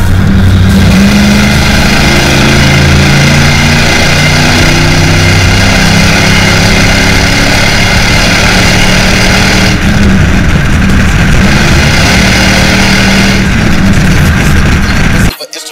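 Exhaust note of a 2003 Dodge Ram 1500 with an aftermarket Gibson exhaust, the truck accelerating through a road tunnel with the engine note climbing. The sound cuts off suddenly near the end.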